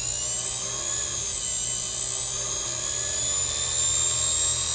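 Pedal-controlled electric motor driving a Boley watchmaker's lathe through its countershaft and leather belts, running up to speed. A high whine rises over about the first second, then holds steady.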